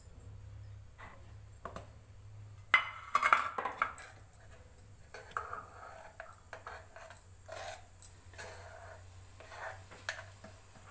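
Metal cookware clinking and clattering a few times, the loudest sharp clinks about three seconds in, followed by softer scattered knocks.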